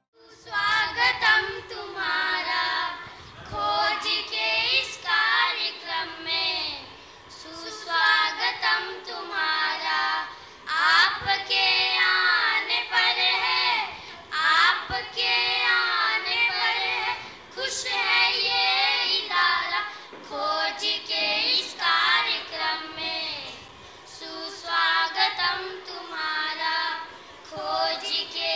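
A group of young girls singing together into stage microphones, in phrases with short breaks between them.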